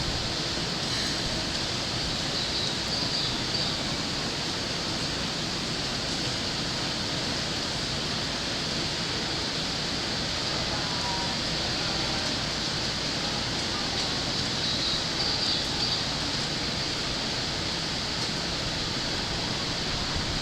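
Steady, even rushing background noise outdoors, with faint high chirps about a second in and again around fifteen seconds in.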